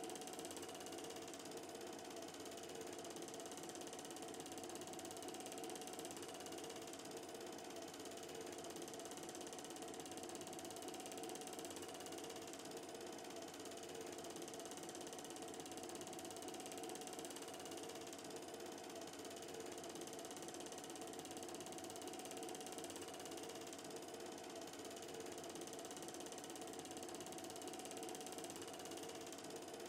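Film projector running steadily: a faint, even mechanical running sound with a steady hum and no change throughout.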